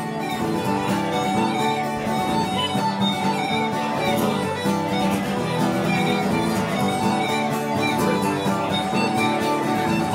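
Live Irish traditional music: uilleann pipes playing a melody over a steady drone, with acoustic guitars strumming along.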